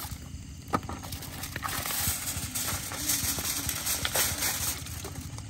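Charcoal grill being fanned with a piece of cardboard: flapping whooshes of air with crackling and knocks, and a hiss over the coals that swells through the middle.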